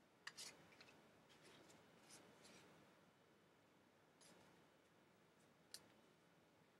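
Near silence with faint, brief rustles of trading cards being handled and slid about, and one sharp click near the end.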